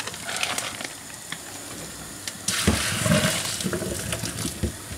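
Hot pasta water and noodles poured from a pot through a plastic colander into a stainless steel sink. The gush starts suddenly about halfway through and dies away just before the end.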